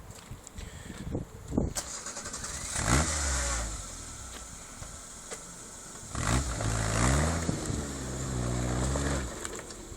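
Off-road vehicle's engine revving, its pitch rising about three seconds in and again rising and falling in several surges over the last few seconds.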